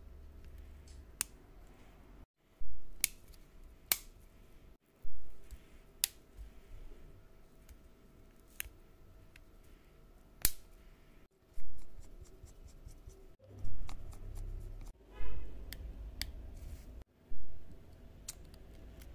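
Scattered sharp clicks and snaps from a smartphone's plastic frame and parts being pressed and handled by fingers and tweezers. A quick rattling run of clicks comes about three-quarters of the way through.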